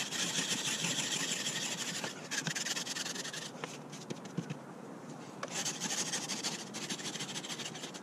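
Hand-held ice scraper rasping frost off a car windshield in rapid back-and-forth strokes, easing off briefly in the middle before picking up again.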